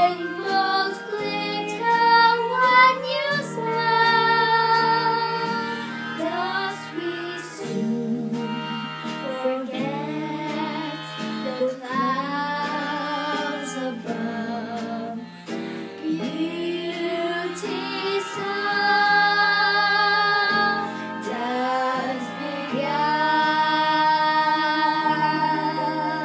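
A young girl singing a song, holding long notes between phrases, over an instrumental accompaniment.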